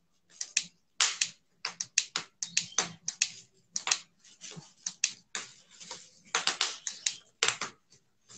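Close, uneven clicking and tapping from hands working a small hard object, several sharp clicks a second in irregular runs, like typing.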